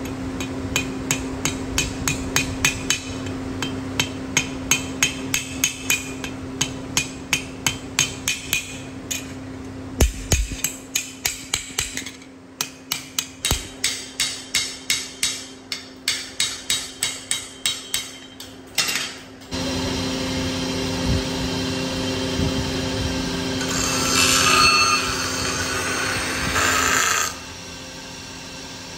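Small hammer striking steadily on a steel cleaver's brass bolster and handle rivets against a steel anvil block, about two to three blows a second, with a steady machine hum behind. About two-thirds of the way in the hammering gives way to a motor-driven grinding wheel running steadily with the steel blade pressed against it, the grinding louder for a moment a few seconds later.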